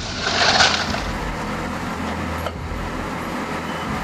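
Heavy machine engine running steadily, with a rushing burst of noise in the first second.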